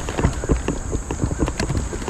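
Irregular knocks and clunks on a fishing kayak, several a second, over low water and wind rumble.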